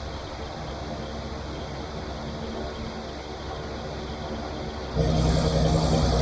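John Deere tractor's diesel engine running steadily under load, becoming sharply louder and fuller about five seconds in.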